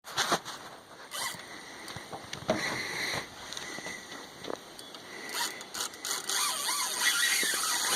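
Fishing reel clicking with a ratchet sound in irregular spurts while a large hooked fish is being fought.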